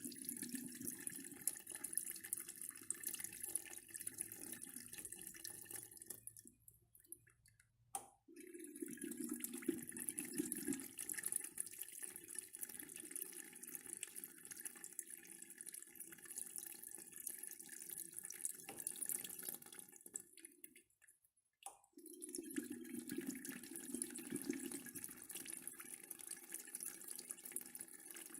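Urinal flush valve pressed repeatedly: water rushes through the bowl, cuts off about six and a half seconds in, and starts again with a click about eight seconds in; it cuts off again about twenty seconds in and restarts with a click a second and a half later.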